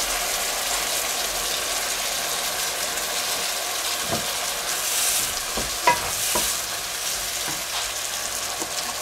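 Sliced mushrooms and diced red onions sizzling in a hot wok, a steady frying hiss, with a few short knocks in the second half as they are tipped in and stirred.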